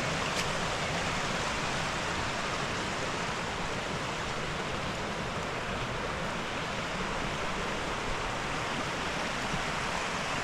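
Steady rush of flowing water from a mountain stream or waterfall, an even hiss without breaks.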